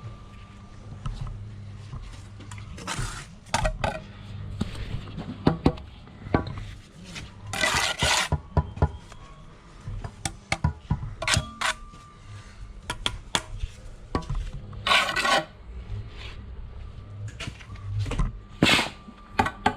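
Blockwork in progress: a steel trowel scraping and slapping mortar and clinking against concrete blocks, with irregular taps and knocks as blocks are set, over a steady low hum. There are short scrapes of about half a second, several seconds apart.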